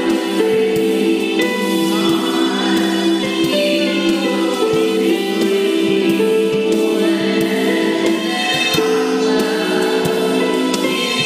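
Music with choral singing over long held chords.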